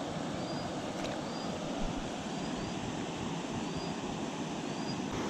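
Steady rush of a small, shallow river's flowing water, with faint short high chirps every second or so and a couple of light clicks.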